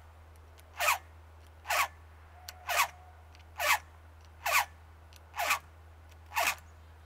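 Chainsaw file being pushed across a saw chain's cutter tooth in steady one-way strokes: seven short rasps about once a second, each falling in pitch, as the tooth is sharpened.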